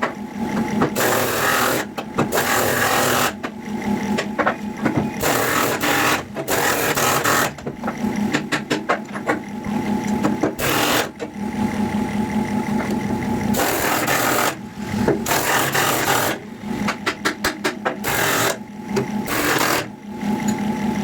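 Impact wrench hammering on the bucket-tooth bolts of a JCB backhoe loader, in repeated bursts of a second or two with rapid rattling between them. A steady low hum runs underneath.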